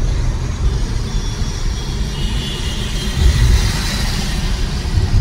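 A car driving along a road: a steady low rumble of road and engine noise.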